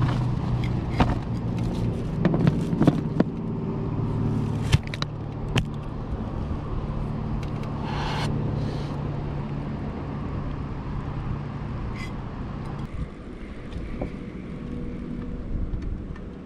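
An engine runs with a steady low hum and stops abruptly about thirteen seconds in. Over it, in the first few seconds, come irregular sharp clicks as a dachshund laps water from a metal bowl.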